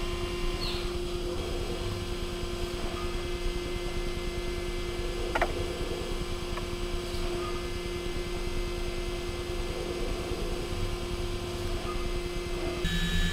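Okuma MULTUS U4000 multitasking CNC machine milling a metal part: a steady machine hum with a constant tone from the spindle and cutting, with one brief sharp sound about five seconds in. The tone shifts just before the end.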